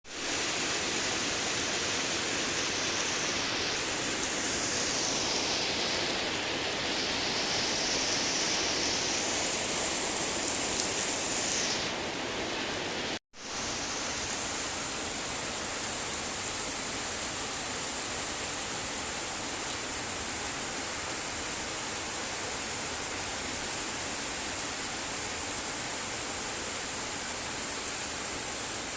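Rain falling steadily, an even hiss. It cuts out for an instant about thirteen seconds in.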